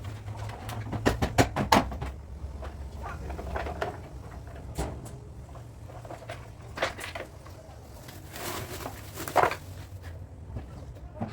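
A quick run of sharp knocks about a second in, then single knocks spaced out, and a short scraping rustle ending in one loud knock near the end, over a low steady hum.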